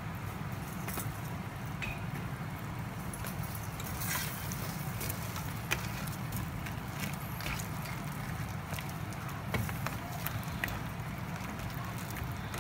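Crab and miswa soup boiling hard in a stainless steel pan: a steady low rumble with scattered bubbling pops. A spoon stirs through the pot, clicking now and then against the pan.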